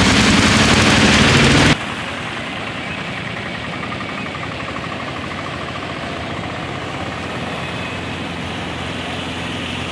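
Autorickshaw engine running close by as it pushes through flood water, with water splashing. About two seconds in, the sound drops abruptly to a quieter, steadier background of distant vehicle engines and rushing flood water.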